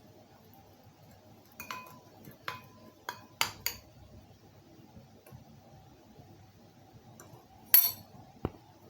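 A spoon clinking against a dish: a run of short knocks, some with a brief ring, then a louder clink near the end and one more just after it.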